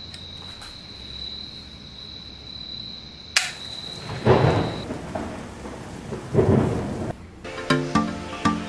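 Thunderstorm sound effect: two rolls of thunder about two seconds apart over a rain-like hiss, after a sharp click. It cuts off suddenly and electronic music with a steady beat starts near the end.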